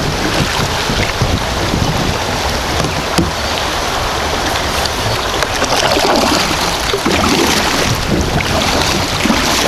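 Shallow creek water rushing over rocky rapids around a kayak, a steady loud hiss.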